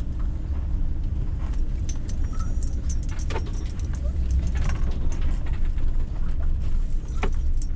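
Roadtrek Zion camper van driving slowly, a steady low engine and road rumble, with light rattling clicks now and then.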